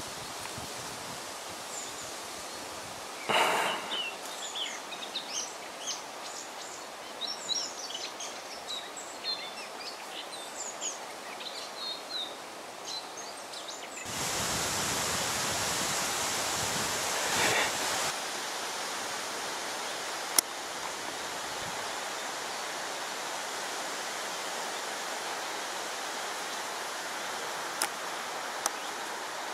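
Outdoor ambience: small birds chirping over a faint hiss, then about halfway through a louder steady rushing hiss takes over, with a couple of sharp clicks near the end.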